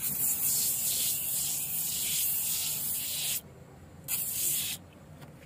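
Aerosol can of foam interior cleaner spraying with a loud hiss: one long burst of about three and a half seconds, then a second short burst of under a second.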